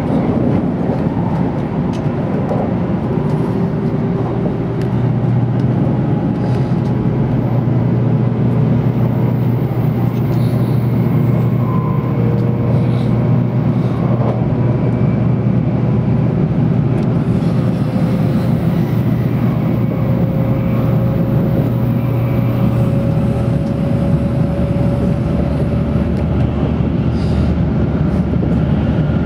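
Cabin noise inside an N700 series Tokaido Shinkansen car travelling at speed: a steady running noise with a low rumble. A faint whine slowly rises in pitch through the middle.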